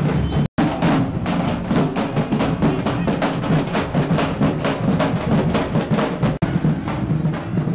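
Drums beating a fast, steady rhythm, loud and continuous, with the sound cutting out for an instant twice.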